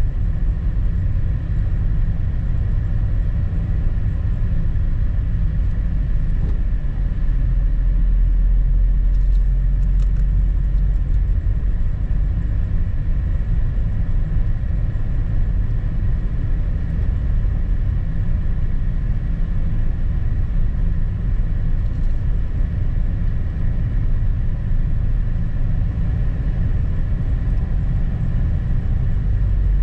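Car driving along a snowy road: a steady low rumble of engine and tyre noise.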